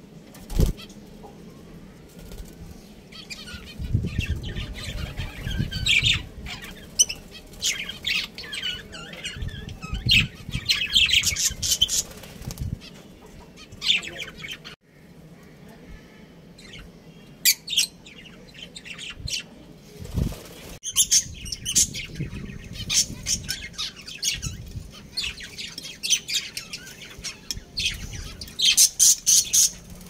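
Budgerigars chirping and chattering in quick clusters of short, high calls, with a few low thumps in between.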